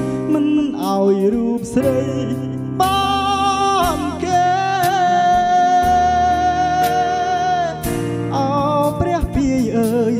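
A man singing into a microphone played through an MY 602 mixer, over backing music. He holds one long note through the middle.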